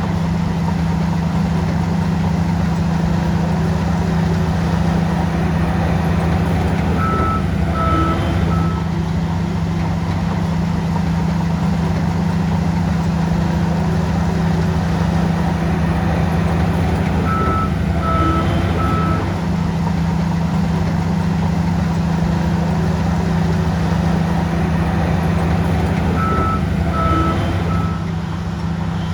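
Heavy diesel engine of a bulldozer running steadily under load, with a reverse alarm sounding three short beeps roughly every ten seconds, three times over.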